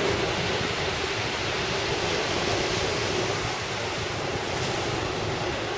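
Steady, even rush of distant jet noise from an Airbus A380's four engines on approach, blended with surf and wind on the microphone, with a faint steady hum underneath.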